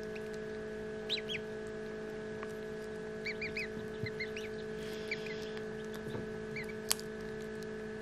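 Ducklings peeping: short, high, rising-and-falling peeps in small clusters of two or three, over a steady electrical hum. There is a single sharp click near the end.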